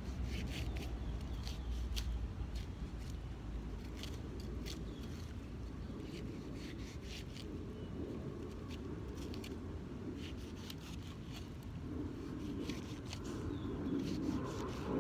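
A large kitchen knife cutting and slicing through ripe jackfruit flesh and core, heard as scattered short clicks and snips. Under it runs a steady low rumble, which swells near the end.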